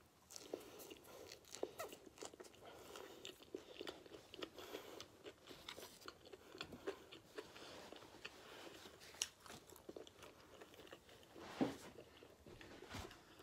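A person chewing a mouthful of breakfast food close to the microphone, quietly, with many small mouth clicks. A louder short noise comes near the end as a paper towel is handled.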